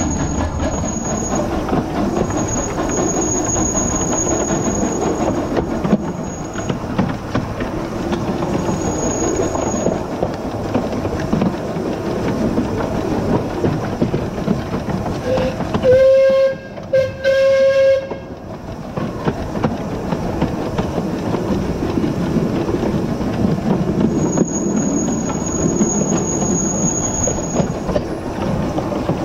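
Small 0-4-2T steam tank engine running along the track, heard close from low on the engine: a steady rumble with wheels clacking over the rail joints and a thin high squeal that comes and goes. About two-thirds of the way in, its steam whistle gives two short blasts, one pitched tone, the loudest sound.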